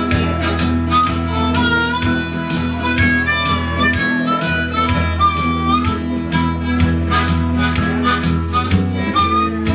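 Harmonica playing an instrumental lead over acoustic guitar accompaniment in a country band, with notes that slide up and down in pitch.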